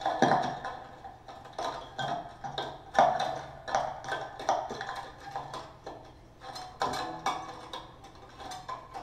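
Strings of a violin lying flat, tapped and plucked with leafy plant sprigs: an irregular run of light taps and short plucked notes that ring briefly. The taps thin out after about six seconds.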